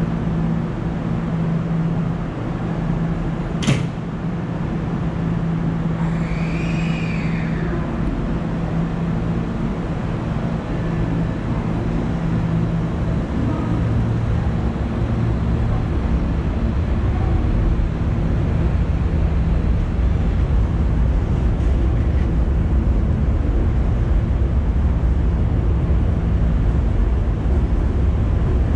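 Electric train running: a steady low hum, a sharp click about four seconds in, and a brief whine that rises and falls. A low rumble then grows louder toward the end.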